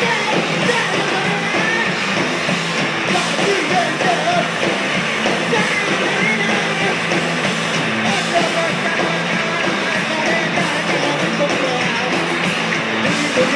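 Live punk band playing loud and without a break: a vocalist shouts and sings into a microphone over electric guitar and drums.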